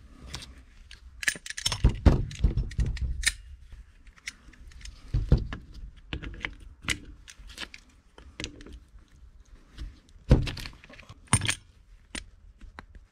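Irregular metal clinks, knocks and rattles as locking pliers work the stripped cover screws of a Webster oil burner fuel pump and the pump is handled on a bench. A quick run of knocks comes about two seconds in, and single sharp clinks come later.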